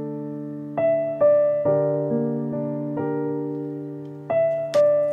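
Background piano music: gentle chords struck every half second to a second, each ringing and slowly fading.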